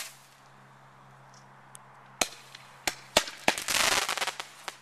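Fireworks going off: after a quiet start, a few sharp separate bangs about two seconds in, then a dense run of crackling cracks lasting about a second.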